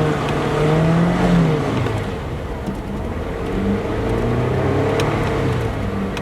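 Car engine revving as the car tries to pull away on snow and ice without getting traction: the engine note holds high for the first second or so, then drops and rises unevenly. A single sharp click about five seconds in.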